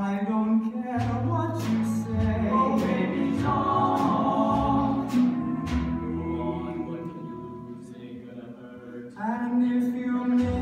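A live stage-musical number: male voices singing a slow song in harmony, a lead voice with backing voices over a bass line. The music grows quieter around eight seconds in, then swells back up just after nine seconds.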